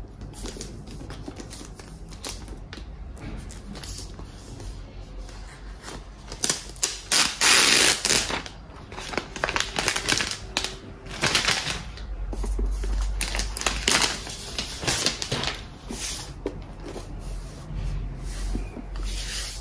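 Unboxing handling noises: the plastic protective wrap around a Mac mini rustling and crinkling, and the cardboard box scraping, in irregular bursts, loudest about seven to eight seconds in, with some low bumps later on.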